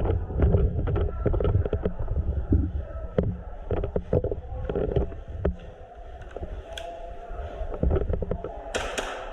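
Irregular sharp clicks and knocks over a steady low rumble, with a short, loud hissing burst near the end.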